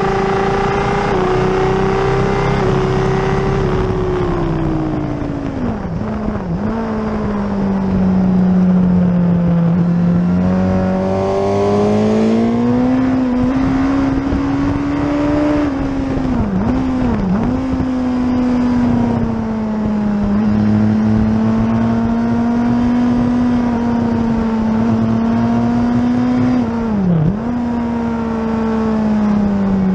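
Suzuki race motorcycle's engine at racing speed, heard from a camera mounted on the bike. The engine note holds high, then dips sharply and briefly about six seconds in, twice around seventeen seconds, and again near the end, over a steady rush of wind noise.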